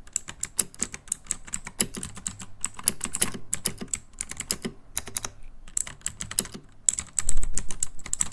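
Typing on a KOORUI MK082 mechanical keyboard with blue switches: quick clacking keystrokes, several a second, broken by a few short pauses. A heavier, deeper thump comes about seven seconds in.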